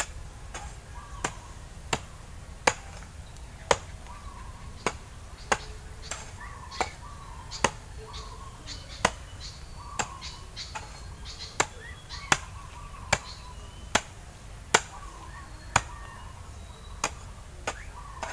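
Repeated sharp chopping strikes, roughly one a second at uneven spacing, over a low steady background, with short high calls in between.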